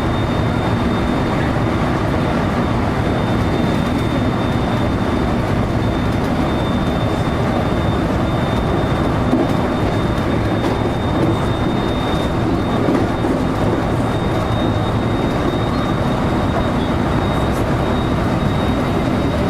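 JR electric train running, heard from inside the car: a steady rumble of wheels on rail and car noise, with a thin steady high whine throughout.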